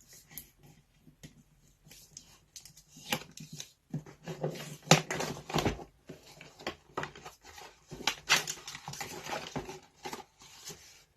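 The box and packaging of a rotary tool kit being handled and opened: irregular rustles, scrapes and light knocks.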